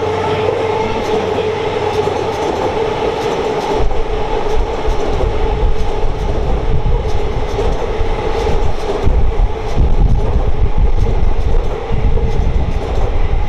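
JR East E235-series Yamanote Line electric train pulling out of the station, with a steady whine and wheels clicking over rail joints as it gathers speed. A low rumble builds from about four seconds in.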